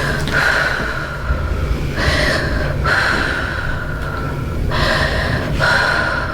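A woman's heavy, gasping breaths, about five in a row, each drawn out for up to a couple of seconds. She is reacting with emotion to a chiropractic adjustment.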